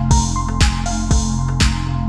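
Background music with a steady electronic beat, about two beats a second.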